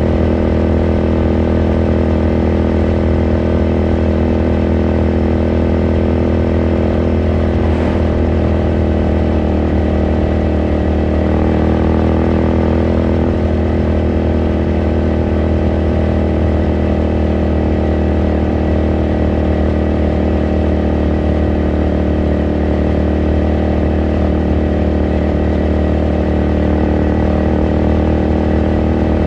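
Ducati Scrambler Sixty2's air-cooled L-twin engine running at a steady speed while riding, with an even exhaust note and little change in pitch.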